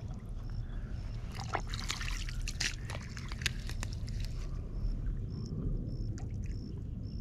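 Water trickling and dripping as hands pull clumps of floating water plants out of shallow water, with scattered small splashes and clicks.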